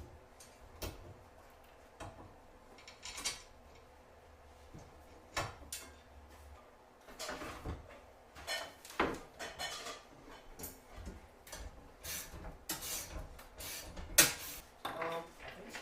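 Handling and assembly noises from parts of a saw table kit: intermittent clicks, knocks and scrapes, sparse at first and busier from about halfway, with one sharp knock near the end.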